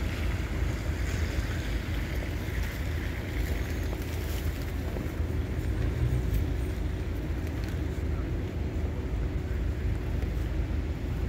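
Steady low rumble of street traffic, with wind buffeting the microphone.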